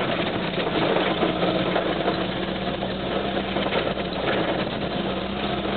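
Vehicle engine running steadily while driving on a gravel road, heard from inside the cab as a steady drone with rough road noise.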